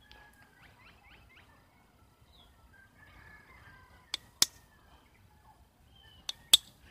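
Flintknapping taps: a bone tool striking stone, two sharp clicks about a second and a half in from the middle, then two more near the end, the second tap of each pair the louder, as flakes are worked off the flint. Faint bird chirps sound in the background.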